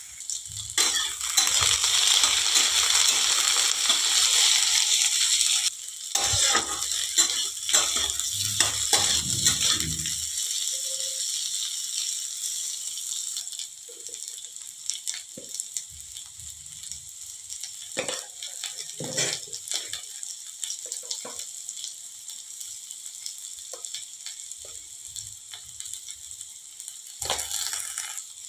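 Sliced bitter gourd sizzling as it fries in hot oil in a pan. The sizzle is loudest for the first ten seconds or so, then settles to a softer sizzle, with scattered clicks of stirring.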